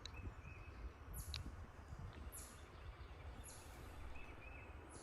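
Birds calling faintly: short high chirps and a couple of brief trills, with high buzzy notes repeating about once a second over a low rumble.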